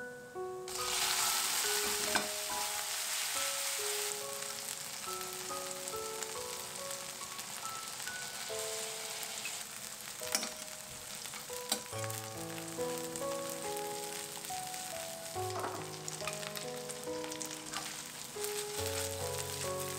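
Pumpkin ricotta gnocchi frying in brown butter in a stainless steel pan, sizzling steadily; the sizzle starts suddenly about a second in and is strongest over the next few seconds. A few sharp clicks, and light background music with plucked notes underneath.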